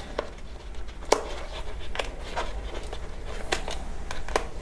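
Hands handling a small cardboard product box on a desk: a few light taps and clicks spread about a second apart, over a low steady hum.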